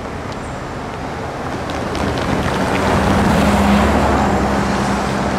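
A motor vehicle passing close by: a steady noise with a low hum that grows louder from about two seconds in and peaks in the second half.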